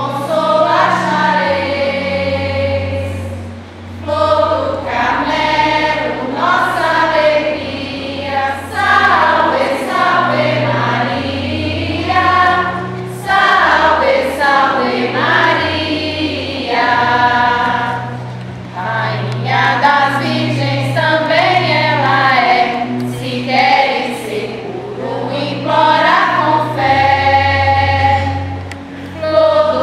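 A group of women's voices, joined by the congregation, singing a Marian crowning hymn. A low accompaniment holds each note for a second or two beneath the singing.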